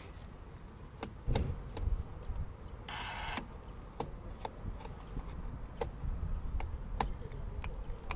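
Small clicks and scrapes of a screwdriver tightening wires into relay screw terminals on a control panel, with a brief rasp about three seconds in, over a low rumble.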